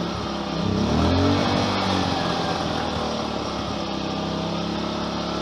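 Amico AIG2000 inverter generator's four-stroke engine running with no load in standard throttle mode, not eco. It rises and falls in pitch once about a second in, then holds a steady hum.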